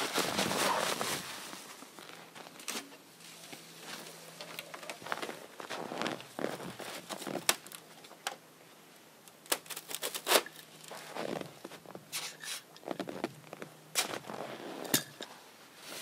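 Footsteps crunching in snow at the start, then scattered sharp clicks and knocks as camp gear is handled at the tent.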